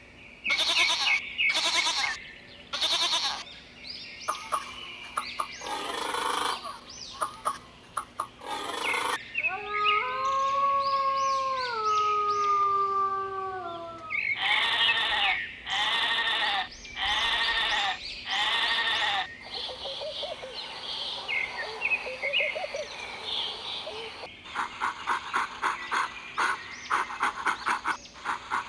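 A run of different animal calls in turn. It opens with a goat bleating in short calls. Later comes a long howl whose pitch steps downward, then four shorter arched calls, fitting the wolf seen. Near the end there is a fast run of short repeated sounds.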